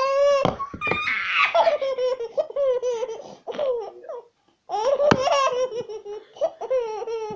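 A baby laughing in repeated high-pitched bursts, with a short pause about four and a half seconds in before the laughter starts again.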